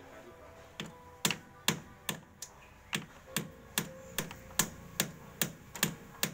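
Ball-peen hammer striking a steel punch held against a tractor gearbox, about fourteen sharp metallic blows in a steady rhythm of a little over two a second.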